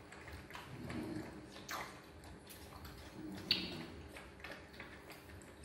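Faint clicks and taps of baby monkeys drinking from plastic milk bottles, the sharpest tap about three and a half seconds in, with a low muffled sound coming and going twice.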